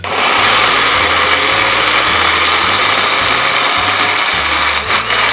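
Electric kitchen blender grinding a thick load of peanuts, chilies, shallots, garlic, candlenuts, ginger and water into a peanut paste. It runs steadily, switching on abruptly at the start and stopping suddenly near the end.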